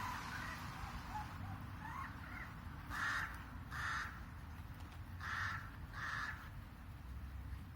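A bird calling out: a few faint short chirps, then four loud harsh calls in two pairs, the calls in each pair under a second apart.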